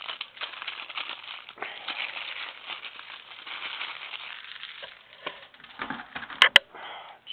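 Wrapping rustling and crinkling as a new typewriter platen is unwrapped, with two sharp clicks about six and a half seconds in.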